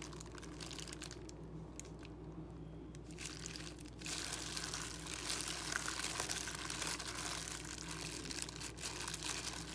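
Plastic-gloved hand kneading and squeezing a sticky raw ground pork meatball mixture in a stainless steel bowl: wet squishing with the crinkle of the plastic glove, louder from about four seconds in.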